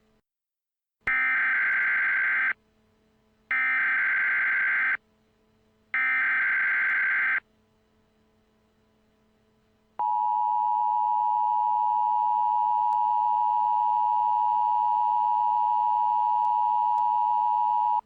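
Emergency Alert System alert tones: three bursts of SAME digital header data, each about a second and a half long with short gaps between, then about two and a half seconds later the steady two-tone EAS attention signal, held for about eight seconds. Together they announce that an emergency alert message is about to be broadcast.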